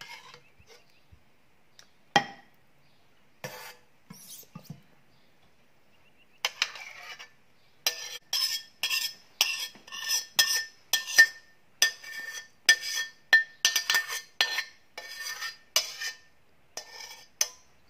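Metal spoon scraping thick sauce out of a steel pan in quick repeated strokes, about two a second, each with a faint metallic ring. A few light clinks and one sharper knock about two seconds in come before the scraping starts.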